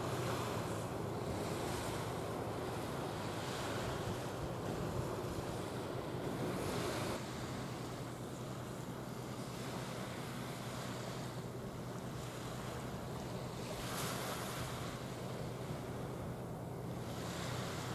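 Wind rushing on the microphone over washing water, with a low steady hum underneath; the wind noise eases a little about seven seconds in.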